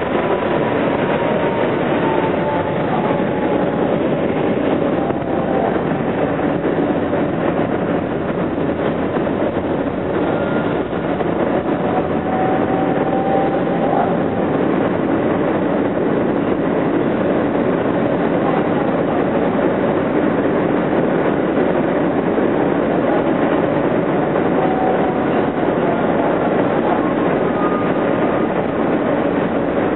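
Interior of an R160B Siemens subway car running at speed on elevated express track: a steady rumble of wheels on rail and the running train, with a few faint high squeals from the wheels now and then.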